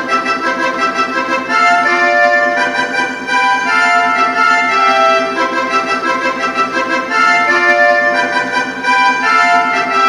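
Roland D-50 synthesizer playing a melody on its 'Pressure Melee' patch: held, bright notes over a fast, steady pulsing accompaniment.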